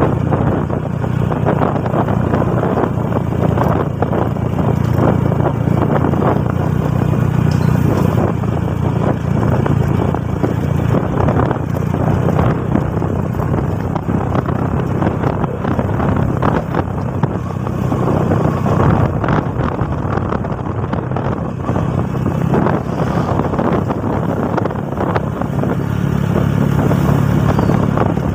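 Motorcycle engine running steadily while riding at an even speed, with wind rushing over the microphone.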